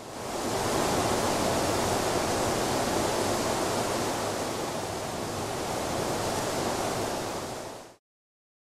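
Steady rushing noise, a dense hiss with no pitch, swelling in over the first second and fading away about eight seconds in, then silence.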